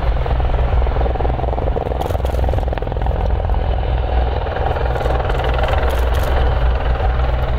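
A formation of Eurocopter EC120 Colibri helicopters flying past, with steady rotor chop and turbine noise.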